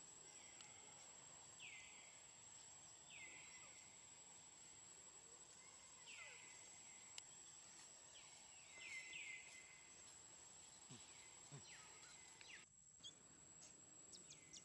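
Faint outdoor ambience: a steady high-pitched insect whine, with short falling chirps repeating every second or two, and the sound briefly cut out near the end.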